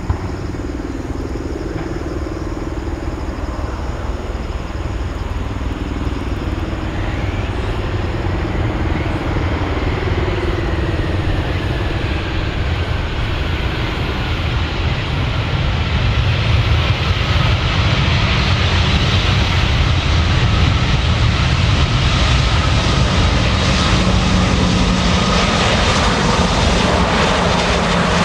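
Airbus A320-200 airliner's jet engines during the landing roll-out. The engine noise swells about halfway through as reverse thrust is applied, the reverser doors open on the engines, with a thin whine slowly falling in pitch.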